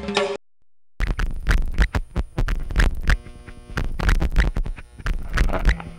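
Modular synthesizer noise: dense crackling, scratchy clicks over held buzzing tones. It starts about a second in, after a snatch of music cuts off and a brief silence. Near the end, warbling higher tones join in.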